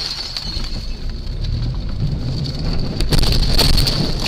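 Loud vehicle noise picked up by a dashcam inside a moving car: a steady rumble with a high hiss over it, and a few sharp knocks about three seconds in.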